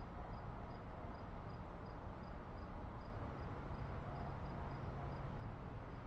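Outdoor garden background with a faint, high insect chirp repeating evenly nearly three times a second. A low steady drone comes in about halfway through.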